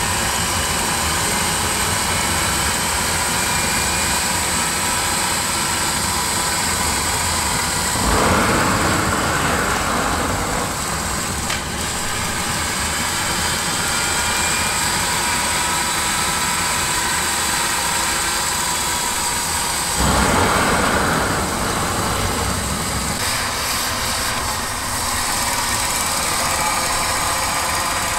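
GTD-350 helicopter gas turbine being spun up on its starter during a propane-fuelled start attempt: a steady whine with several gently drifting tones. Two louder rushing bursts come about eight and twenty seconds in.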